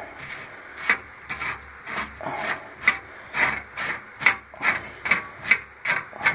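Heating element being unscrewed from an oil-filled radiator heater: a run of short scraping, rasping strokes, about two a second.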